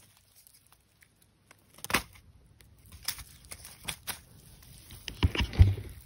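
Starting about two seconds in, scattered snaps and crackles of twigs and leaf litter on a forest floor, then a few dull thuds near the end, as of steps or handling in the undergrowth.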